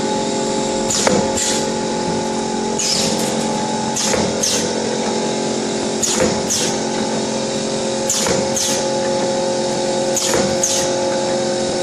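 YX400 wire-cut cookie depositing machine running: a steady motor hum, with a pair of short hissing strokes about every two seconds, one pair per depositing cycle.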